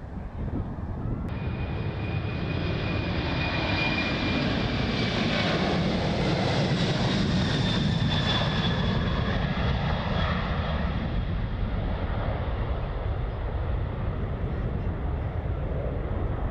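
Jet airliner engines at takeoff power, passing by as the plane takes off and climbs. A steady rumble with high turbine whines cuts in about a second in, swells to its loudest around the middle, then fades with the whine pitch sliding slowly down.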